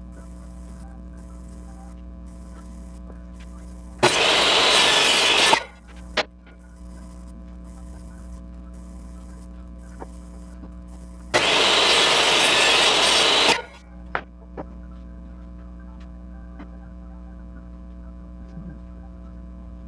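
Table saw cutting miters in wooden picture-frame molding on a miter sled: two loud cuts of about two seconds each, starting and stopping sharply about four and eleven seconds in, each followed by a light knock or two, over a steady hum.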